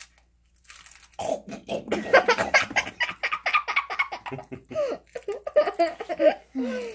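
Two children laughing hard in rapid bursts, mixed with the crisp crunch of a cheese puff being chewed.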